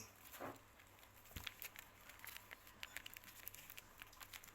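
Faint crinkling and scattered small ticks as homemade squishies and their paper and tape wrapping are handled.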